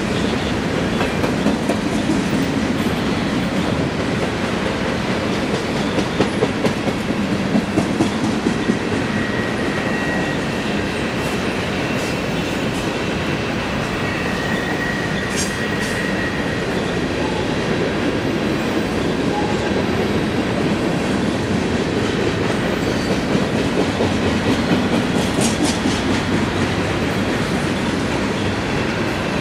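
Freight cars of a passing CSX manifest train rolling by: a steady rumble of steel wheels on rail. About six to nine seconds in comes a run of rhythmic clickety-clack as wheelsets cross a rail joint, and a faint high wheel squeal sounds twice in the middle.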